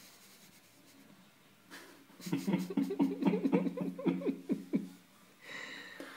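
A person laughing: a quick run of short, voiced 'ha' pulses, about five a second, for roughly two and a half seconds starting about two seconds in, followed by a breathy exhale near the end.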